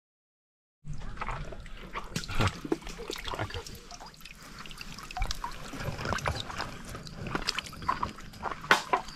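Water sloshing and splashing, with trickling and dripping, as a caught fish is held and handled in the river water. The sound starts abruptly about a second in.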